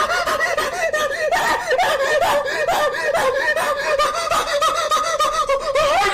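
iPhone ringtone playing: a high-pitched, warbling run of quick chirping notes, several a second, with a laugh-like quality.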